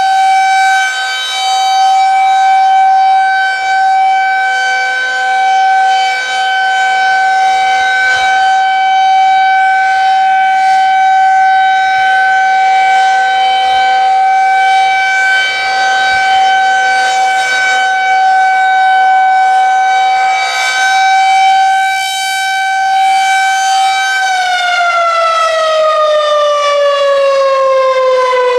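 Federal Signal 2001-130 electromechanical outdoor warning siren sounding a steady tone for its monthly test, swelling and fading a little in loudness. About 24 seconds in it begins to wind down, its pitch falling steadily.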